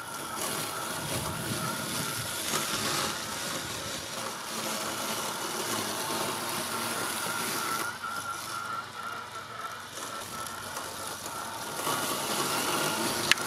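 ECOVACS GOAT G1 robot lawn mower cutting grass at a 30 mm height as it drives past: a steady whine from its brushless blade motor over the rush of the blade in the grass. It eases off for a couple of seconds partway through and comes back up, with a sharp click just before the end.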